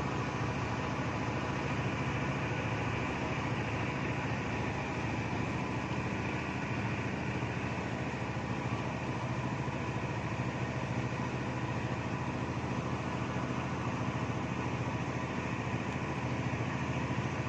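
An engine running steadily at idle: a constant low hum that does not change in speed.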